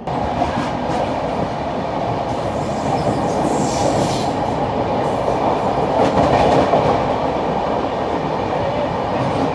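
Bhubaneswar Rajdhani Express with Tejas coaches running past close by at speed: a loud, steady noise of coaches and wheels on the rails.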